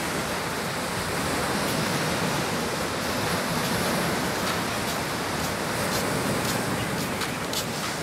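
Sea surf washing onto a sandy beach: a steady, even rush of small waves.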